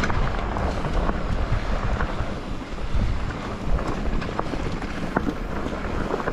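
Wind rushing over the microphone of a mountain bike riding fast down a dirt and gravel singletrack, with a steady low rumble from the tyres and frame. Scattered sharp clicks and rattles from stones and the bike over the bumps.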